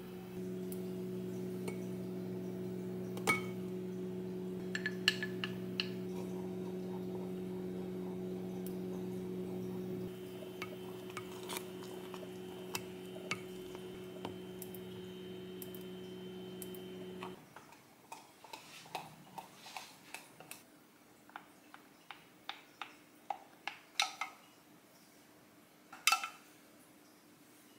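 A kitchen appliance hums steadily, then cuts off suddenly a little over halfway through. Light clinks and taps of dishes and utensils come throughout, more often once the hum has stopped.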